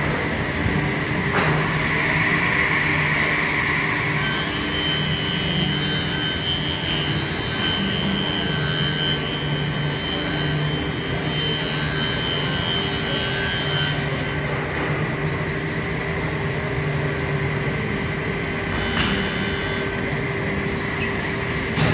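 Woodworking power tool running steadily with a low hum. A high whine joins about four seconds in and drops away about ten seconds later.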